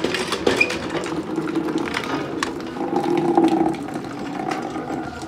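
Water being poured from one steel bowl into another and splashing, with clinks of the metal bowls.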